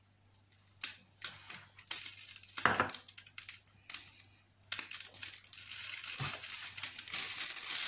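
Light clicks and knocks as a nonstick frying pan is handled and oil is poured into it on the hob. From about five seconds in a steady hiss starts and grows louder: the oil beginning to sizzle as it heats in the pan.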